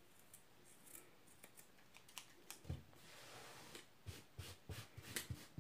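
Scissors trimming the ends of a yarn tassel: faint, quick snips, with several close together in the last second and a half.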